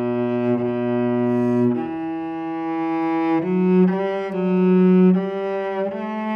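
Solo cello bowed in a slow melody of long held notes, moving to a new pitch every second or two.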